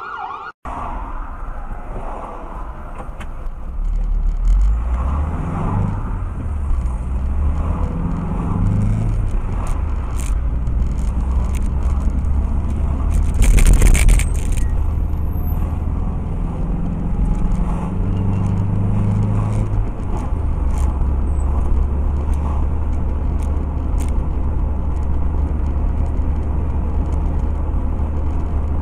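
Engine and road noise of a moving vehicle, picked up inside the cab by a dashcam microphone, with the engine note shifting pitch a few times. A brief loud burst of noise comes about halfway through.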